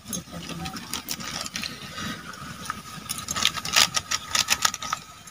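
A plastic chilli-powder packet crinkling and crackling as it is torn open by hand, the crinkles thickest in the second half. Underneath is a steady low sizzle from onions frying in an iron kadai.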